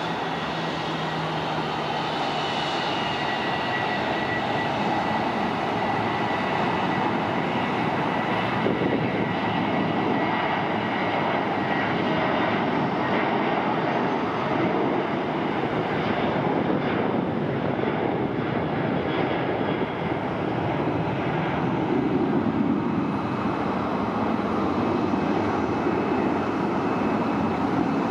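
Boeing 737-800's CFM56-7B jet engines at takeoff thrust during the takeoff roll: a steady jet roar with a high fan whine that falls slightly in pitch over the first few seconds. The deeper rumble grows stronger toward liftoff.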